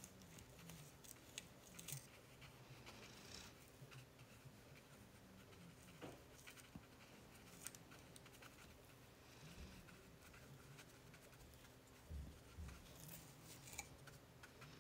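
Near silence: room tone with faint scratches and light taps of a watercolour brush working over wet paper.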